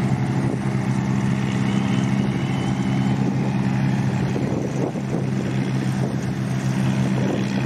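Farm tractor engine running at a steady, even speed, with no revving.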